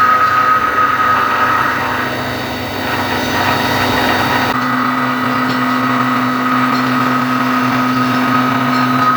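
Hitachi Seiki VM50 vertical CNC mill cutting a steel mold with an 8 mm ball-nose end mill at 3800 rpm: a steady machining whine with a constant high tone. The low hum underneath drops away abruptly about halfway through.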